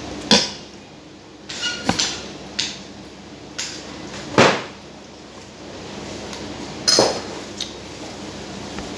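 Eating utensils knocking and clinking against dishes, about seven separate sharp clatters at irregular intervals, some with a short ring.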